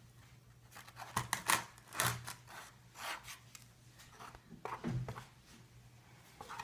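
Freshly mixed glue slime being worked in its container, giving irregular clusters of short sticky clicks and squelches.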